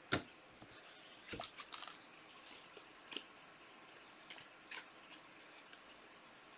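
Light handling noise: a sharp click just after the start, then scattered small clicks and rustles over a quiet room.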